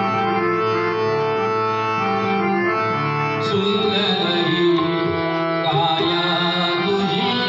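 Marathi abhang bhajan in slow vilambit tempo: sustained harmonium-like notes over tabla and pakhawaj, with a man's voice singing in from about halfway.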